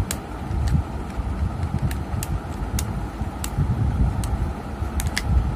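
A screwdriver working the screw terminals of a digital temperature controller: a scattered handful of sharp little clicks over a steady low rumble.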